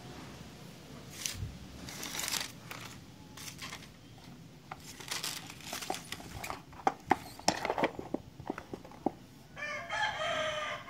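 Plastic packaging crinkling, with sharp clicks and taps as a cardboard phone box is handled. Near the end a rooster crows once for about two seconds, falling in pitch at the end.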